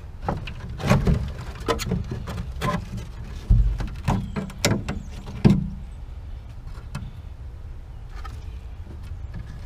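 A run of about ten knocks and clatters over the first five and a half seconds, the last the loudest, over a steady low hum.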